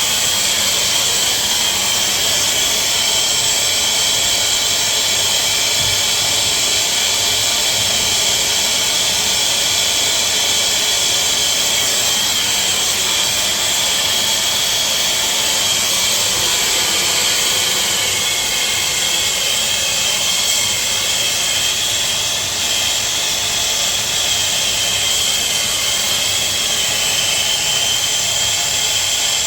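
Soldering torch flame burning steadily with a loud hiss and a faint high whistle, heating a 1-inch copper water-main joint for soldering.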